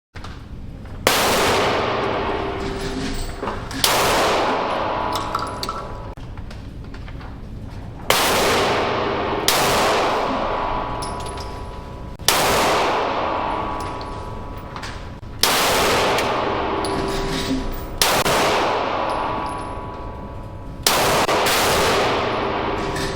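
About ten single loud bangs at uneven intervals, each followed by a long, ringing, echoing decay lasting one to three seconds.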